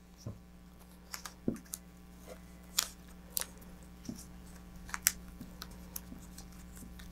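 Hands wrapping a small piece of tape around a knotted shock cord: scattered soft clicks, ticks and crinkles of tape and cord being handled and pressed down.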